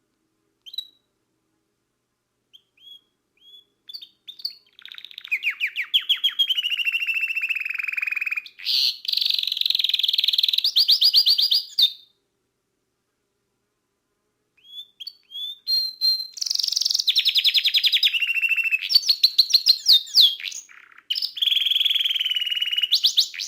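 Canary singing: a few short chirps, then long runs of rapid high trills that glide down in pitch, in two bouts with a pause of a few seconds between them.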